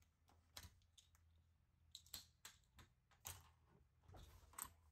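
Faint, irregular clicks and taps of a hand working stainless-steel refrigerator doors, latches and baskets, over a low steady hum.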